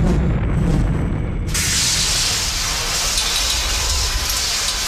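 Sound-effect low rumble, then about one and a half seconds in a sudden, loud, steady hiss of rushing icy gas begins and carries on, marking the switch from fire to extreme cold.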